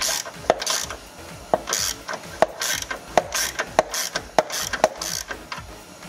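Hand ratchet clicking in repeated back-and-forth strokes, about eight in a row, as it loosens the nut on a car battery's negative cable terminal.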